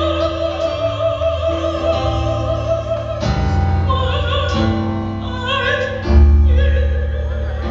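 Classically trained soprano singing a gospel song with operatic vibrato over low sustained accompaniment chords. She holds one long high note for about three seconds, then moves into a running melodic line.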